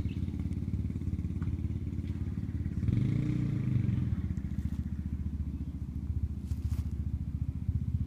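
Small motorbike engine running at low speed while riding across grass, its note swelling briefly about three seconds in.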